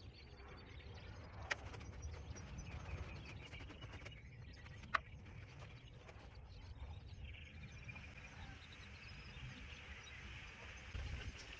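Quiet outdoor ambience: a steady low rumble with faint bird chirps, and two sharp clicks, one about a second and a half in and a louder one about five seconds in.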